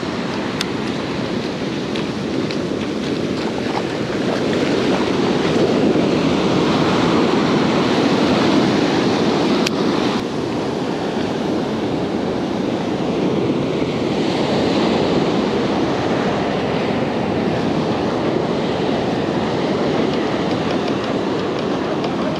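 Ocean surf breaking and washing up a sandy beach at the water's edge, with wind on the microphone. The wash swells louder for several seconds in the first half.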